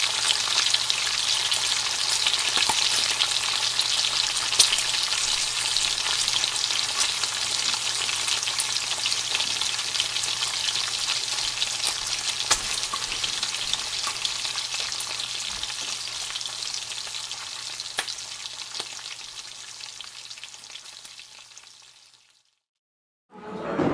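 Dense crackling hiss with scattered sharp clicks over a low steady hum. It fades away over the last several seconds and breaks off into about a second of silence near the end.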